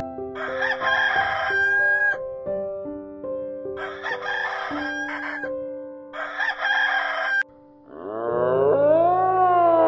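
Rooster crowing three times, the last crow cut off short, over soft background music. Near the end a different long animal call starts, rising in pitch.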